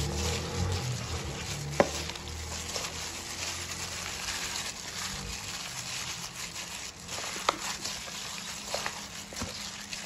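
Gloved hand squishing and kneading raw chicken wings in a sticky flour-and-fish-sauce batter in a stainless steel bowl: wet squelching, with a few sharp clicks, the loudest about two seconds in.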